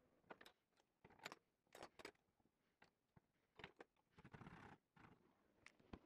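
Faint metal clinks and knocks as a small steel can opener is handled and set into the jaws of a bench vise with a hacksaw, with a brief scrape about four seconds in.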